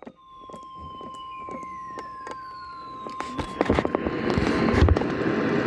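NOAA Weather Radio warning alarm tone, a single steady 1050 Hz tone received over the radio, with a few falling whistles and crackles of static. The static grows louder about three and a half seconds in, marking the alert for a severe thunderstorm warning.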